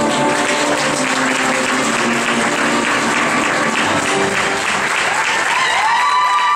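Audience applauding at the end of a figure skating routine, with the routine's music still playing under the clapping.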